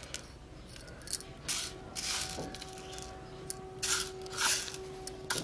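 Dry split pigeon peas and red lentils rustling against a steel plate in several short bursts as fingers rake through them to clean the dal.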